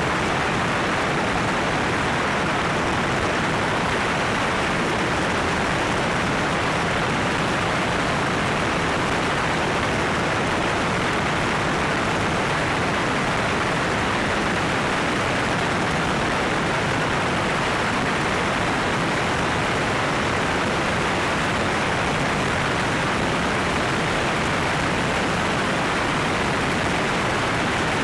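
Steady, even rushing noise of a small floatplane under way, with engine and airflow blended on an externally mounted camera and no distinct pitch or change.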